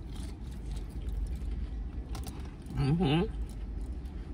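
A short closed-mouth 'mm-hmm' hum about three seconds in, its pitch dipping twice, over a steady low rumble of a car's cabin and a few faint clicks of eating.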